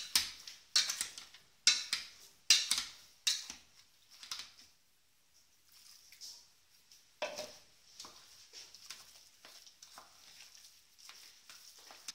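Potato masher pushed down into boiled potatoes in a stainless steel pan, knocking against the pan about once a second for the first few strokes. The mashing then goes on more softly, with light clicks and scrapes in the mash.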